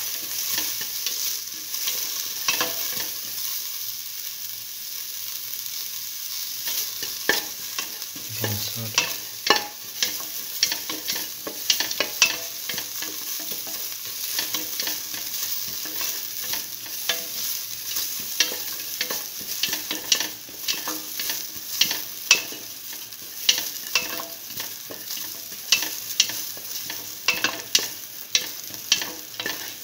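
Sliced onion sautéing in hot oil in a stainless steel pan: a steady sizzle, with frequent sharp clicks and scrapes as the onion is stirred against the metal.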